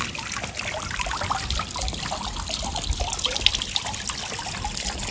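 Tiered garden fountain splashing and trickling steadily into its pool.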